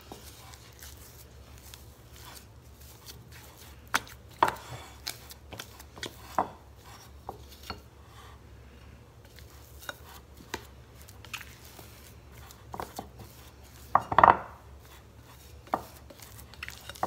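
Rubber spatula working stiff masa dough in a glass mixing bowl: irregular scraping strokes and knocks of the spatula against the bowl, the loudest a cluster of knocks near the end.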